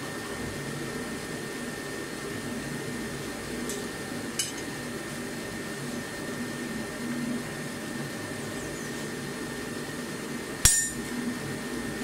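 Forge running steadily with a low rushing hum and a faint high whine while the steel heats. A light metallic tick about four seconds in, and one sharp metallic clang with brief ringing about a second before the end.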